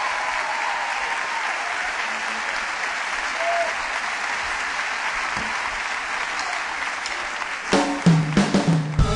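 A large audience applauding steadily. Near the end a live band comes in with a few drum-kit hits and bass notes, starting the song's intro.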